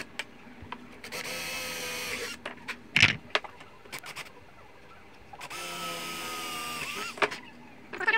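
Cordless drill drilling holes through a wooden former in two short runs, one about a second in and one past the middle, its motor whine climbing in pitch at the end of the second run. Between the runs come sharp knocks and clatter of wood and tools being handled, the loudest knock about three seconds in.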